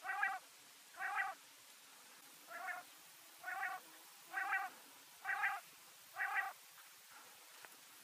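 Quail calling: seven short calls in a steady series, about one a second, stopping about two-thirds of the way through.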